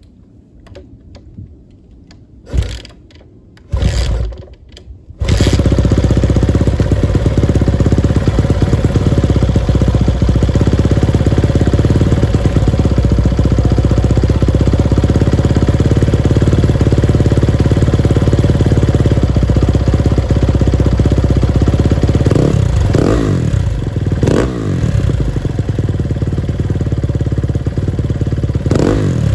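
2018 Kawasaki KX250F four-stroke single-cylinder dirt bike engine: two brief firings, then it catches about five seconds in and idles steadily. A few quick throttle blips near the end make the engine note rise and fall.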